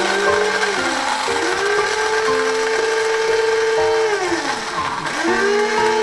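Small electric coffee bean grinder running, its motor whirring with a steady high whine as it grinds. Twice the motor winds down, its pitch sinking, and then speeds back up: once about a second in, and more deeply about four to five seconds in.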